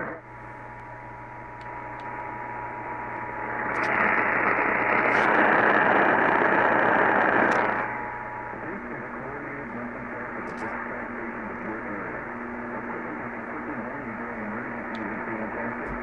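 Radio static hissing from a small radio's speaker, with the narrow, muffled sound of an AM receiver, swelling much louder for about four seconds in the middle. Faint steady tones and a low hum sit under the hiss.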